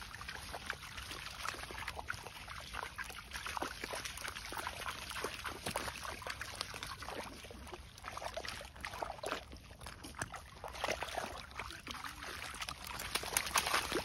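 A Staffordshire bull terrier splashing and pawing in a muddy puddle: irregular sloshes and splashes of water and mud that grow busier and louder near the end.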